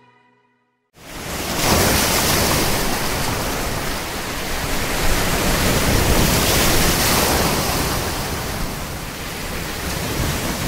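Steady rushing wash of ocean surf, starting about a second in after a brief silence and swelling and easing only slightly.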